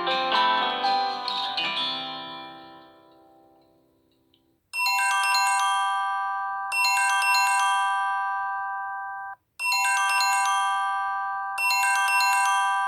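Samsung Galaxy J7 2017 stock ringtones: a plucked-string melody fades out over the first few seconds, then after a short pause a bright, bell-like chiming ringtone starts, its short phrase looping four times.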